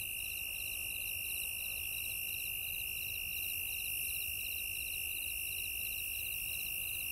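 A steady high-pitched electronic tone with hiss above it and a faint chirping pattern repeating about three times a second, left after the song has stopped.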